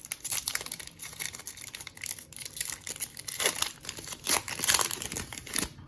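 A plastic trading-card pack wrapper being torn open and crinkled by hand: an irregular crackling with louder crinkles about halfway through.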